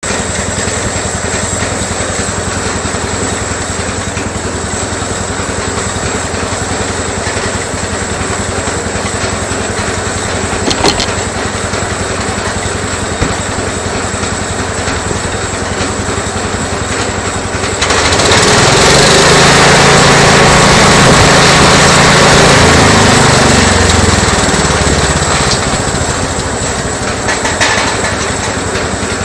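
The 12 HP engine of a homemade bandsaw mill runs steadily. About two-thirds of the way through, a much louder rushing noise joins in for about seven seconds while the engine note wavers and sags, then it eases back to the steady running.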